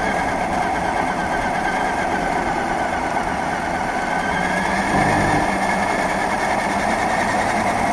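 Radio-controlled car running along an asphalt path, heard from on board: a steady motor and drivetrain whine with tyre rumble, its pitch wavering slightly as the car changes speed. The sound gets a little louder and lower about five seconds in.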